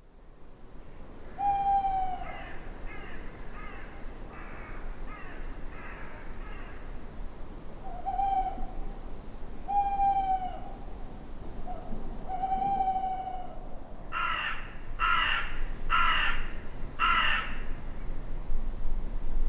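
Woodland birds on a field recording: several short, slightly falling hoot-like calls, a quick run of short harsh notes, then four loud caws from a crow-family bird near the end.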